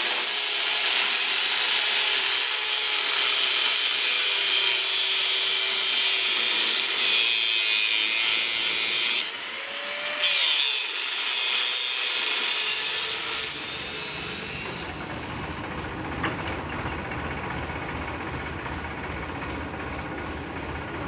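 Angle grinder with an abrasive disc grinding the steel frame of a plough, a steady high grinding hiss over the motor's whine, briefly interrupted about nine seconds in. From about thirteen seconds it gives way to a tractor engine idling with a low, even rumble.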